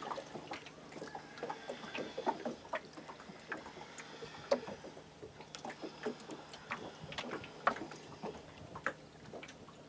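Small boat on floodwater: scattered, irregular light splashes and knocks against the hull, with no steady rhythm.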